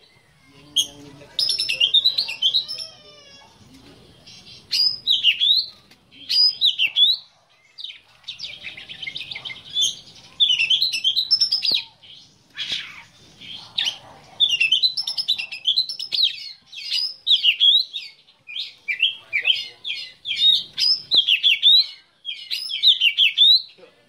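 A black-breasted oriental magpie-robin (kacer dada hitam) singing a long run of quick, varied whistled phrases that sweep up and down in pitch, in bouts separated by short pauses.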